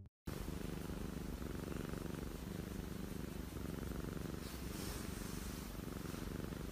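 Domestic cat purring steadily while being stroked on the head.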